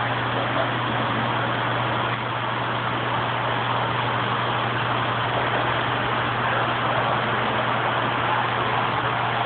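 Reef aquarium equipment running: a steady low pump hum under an even hiss of circulating water.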